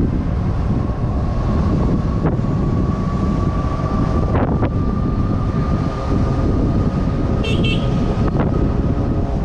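Wind rumbling on a handlebar-mounted action camera's microphone while riding a SUPER73 RX electric bike, with a thin steady whine from its hub motor slowly rising in pitch. A few light knocks come from bumps in the road, and there is a brief high chirp near the end.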